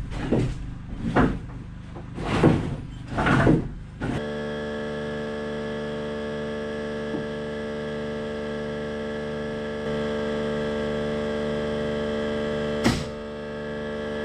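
Four or five short scraping, rustling noises, like boards being handled. About four seconds in, these cut off abruptly and give way to steady background music: a held synthesizer chord with one brief click near the end.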